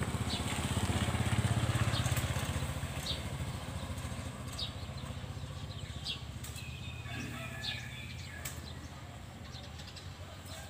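A low, steady rumble that swells over the first two seconds and then slowly fades, with a small bird's short high chirps repeating about every second and a half.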